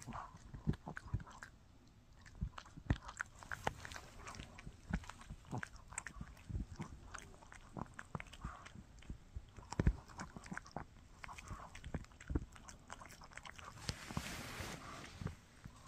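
Shih Tzu chewing a bully stick: irregular clicks and crunches of teeth gnawing the chew, with a short hiss near the end.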